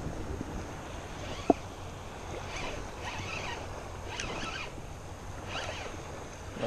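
Spinning fishing reel being cranked, reeling in line with the rod bent under load, with a faint whirring that comes and goes over steady wind and water noise. One sharp click about a second and a half in.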